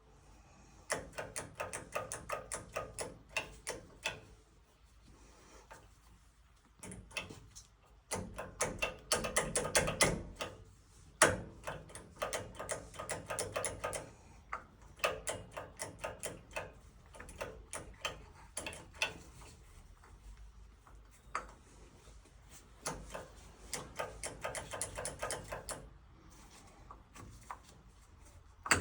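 Rapid runs of small mechanical clicks, several a second, as a gas water heater's pilot controls are worked and its igniter is searched for. The clicking comes in bursts of a few seconds with short pauses between them.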